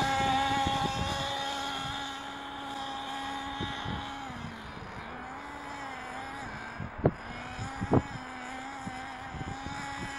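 Alpha Dragon nitro engine of an RC buggy running at a steady, gentle part throttle while being broken in on the track. It drones on one pitch, grows fainter after a couple of seconds and wavers slightly in pitch around the middle. Two sharp clicks come near the end.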